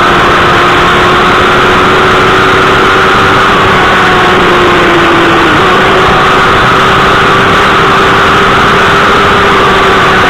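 Suzuki GSX-R1000 K7's inline-four engine running hard at high, nearly steady revs at around 220 km/h, very loud, over a dense rush of wind noise.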